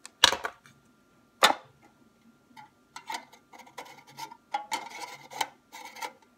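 Clicks and light clinks from lighting candles and handling candle jars: two loud sharp clicks in the first second and a half, then a run of quieter clicks and knocks.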